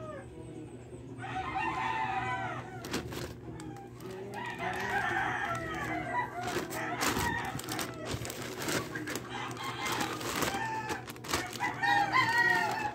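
A rooster crowing three times, with sharp crinkling and crackling of a plastic courier mailer bag being handled between the crows.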